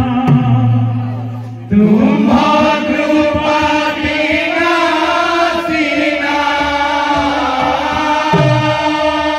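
Odia kirtan group chanting together in unison, after a held note in the first couple of seconds. Near the end, mridanga bass strokes with a falling pitch come in under the singing.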